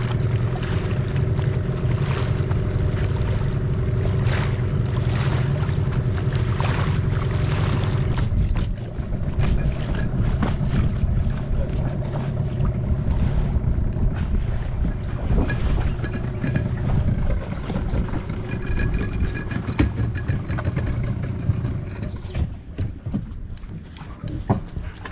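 Boat engine running steadily with wind buffeting the microphone. About eight seconds in the engine hum drops away, leaving wind and water noise with scattered knocks.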